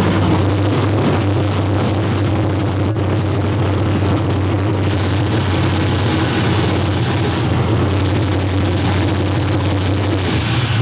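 6.0-litre GM LS V8 swapped into a Nissan 240SX, idling steadily with a loud, even note; the idle rises slightly near the end.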